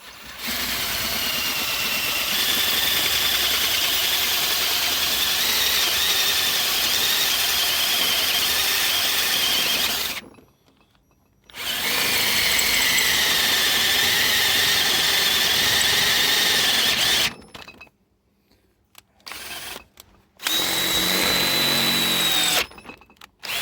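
Electric drill driving a cobalt bit into a snapped bolt in a small block Chevy's cast-iron head, running in three bursts, about ten seconds, then six, then two, with a wavering high squeal of the bit cutting the steel bolt.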